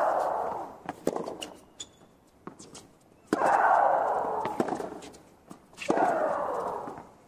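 Tennis rally: each of the near player's racket strokes is followed at once by her long, loud shriek, a cry that falls away over more than a second. This happens three times, at the start, a little over three seconds in, and about six seconds in, with the opponent's fainter ball strikes and footwork in between.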